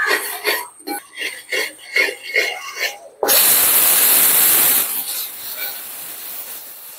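A pressure cooker on a gas stove suddenly vents steam with a loud, steady hiss about three seconds in, which slowly fades.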